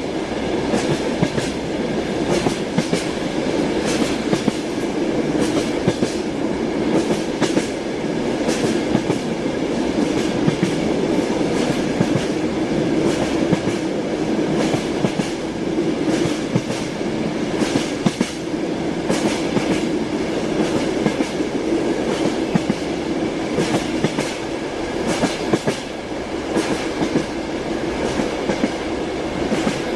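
Steady rumble of a moving train's rail cars, with the wheels clicking over rail joints (clickety-clack) throughout and faint high squealing tones from the wheels or rails.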